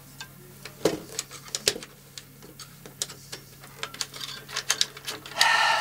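Irregular clicks and knocks of hands working the metal side panel and fittings of an EMI 2005 TV camera, with a brief, louder scraping sound near the end.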